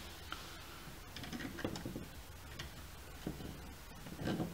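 Faint, scattered small clicks and taps of plastic parts being handled: a small case fan being fitted against a clear acrylic case lid with screws and plastic nuts. A denser run of clicks and rubbing comes near the end.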